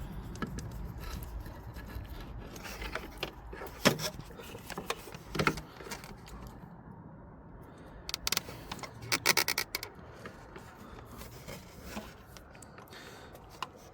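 Scattered clicks, taps and light scrapes of small tools and cables being handled while a fridge's 12 V supply is wired up, with a quick run of clicks a little past the middle, over a low steady hum.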